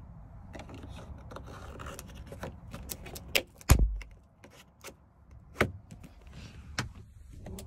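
A few sharp plastic clicks and knocks as a 3D-printed cover is pressed onto a car's roof grab-handle mount, over rustling handling noise. The loudest is a click with a dull thump a little before the middle.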